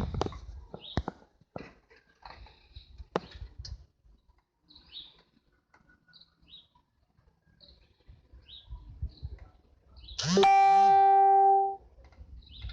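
An animal eating, with small scattered clicks and crunches. About ten seconds in, a loud steady tone slides up and holds for about a second and a half, then stops; it is the loudest sound.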